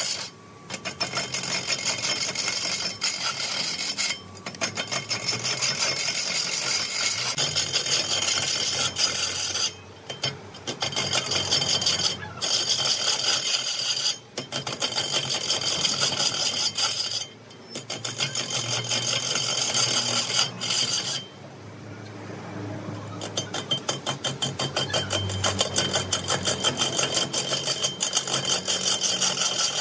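A hand-held turning tool cutting a large log spinning on a wood lathe: a fast chattering scrape as the blade bites into the wood and throws off shavings. It breaks off for short moments several times, with the longest pause of about two seconds roughly three-quarters of the way through.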